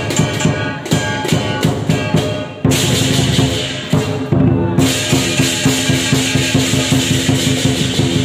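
Lion dance percussion playing: drum strokes with clashing cymbals and a ringing gong in a quick, steady rhythm. It grows louder and fuller about three seconds in.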